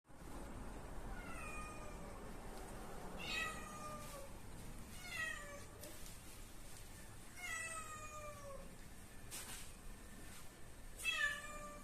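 A cat meowing five times, a couple of seconds apart. Each meow is a drawn-out call that falls in pitch, and the last is the loudest.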